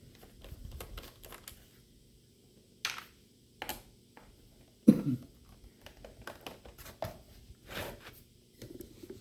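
Scattered clicks and knocks as screws are taken out of a plastic laptop's bottom case and the laptop is handled, the loudest knock about five seconds in.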